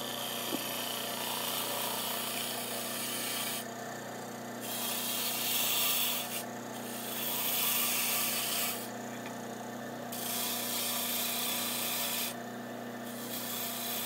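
Detail gouge cutting into a spinning maple blank on a JET wood lathe, shaping a small shoulder: a hissing scrape of steel on wood in about five passes of one to three seconds each, with short breaks between, over the steady hum of the lathe.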